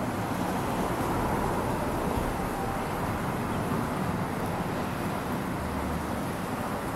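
Steady outdoor background noise, a low even rumble with no distinct events.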